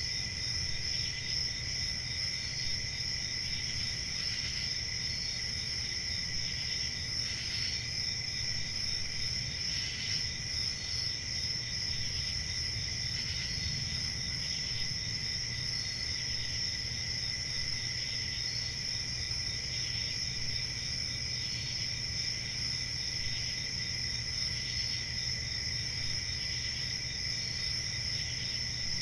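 A chorus of crickets trilling steadily, with separate chirps from individual crickets recurring every second or two over the continuous drone.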